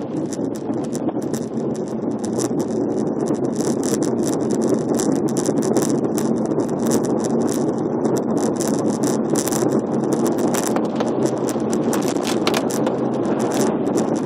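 Car driving through a rock road tunnel: steady road and tyre noise, with a fast, irregular crackle of ticks on top that is thickest in the middle.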